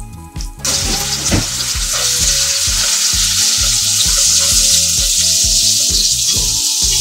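Straw mushrooms dropped into hot oil and garlic in a nonstick frying pan. A loud sizzle starts abruptly about half a second in and then holds steady while they are stir-fried with chopsticks.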